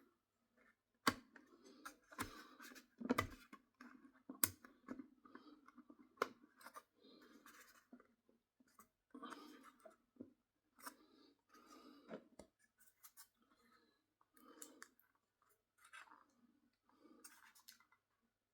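Plastic body shell of a model locomotive being handled and worked down onto its chassis: faint scraping and rubbing, with several sharp clicks and knocks, the loudest in the first few seconds.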